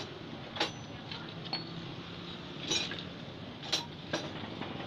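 Four sharp metallic clinks spread over a few seconds as a scooter's variator parts, the drive pulley and its roller weights, are handled, over a steady low hum.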